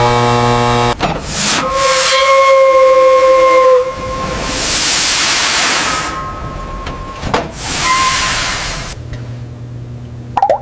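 Steam whistle blowing a steady tone among loud bursts of hissing steam, the hiss swelling and dying away twice before a lower hum takes over near the end.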